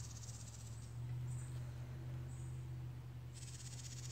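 Insects trilling: two buzzy, rapidly pulsing high trills about a second long, one at the start and one near the end, with short high chirps between them, over a steady low hum.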